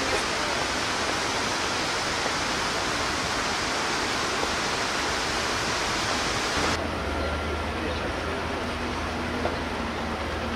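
Outdoor city ambience: a steady, even rushing hiss. About two-thirds in it gives way abruptly to a quieter, lower background with a steady low hum of distant traffic.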